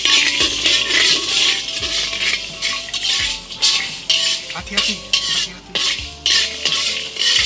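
Rhythmic scraping strokes of a kitchen utensil, about two a second, as spices for a paste are worked by hand.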